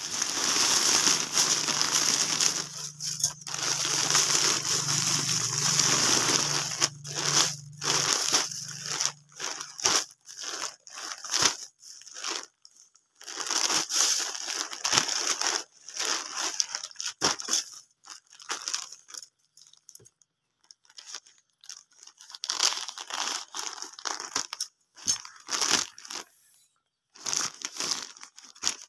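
Plastic packaging crinkling and rustling in irregular bursts as a clear plastic bag and a plastic courier mailer are handled and torn open. A low steady hum runs underneath for about the first third and then stops.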